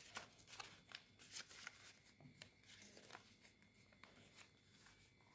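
Faint, scattered rustles and small crackles of a sheet of paper being handled and folded by hand.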